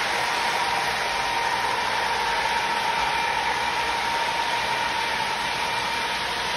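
Model electric trains running on a layout: a steady whir of motors and wheels rolling on track, with a thin steady whine over it.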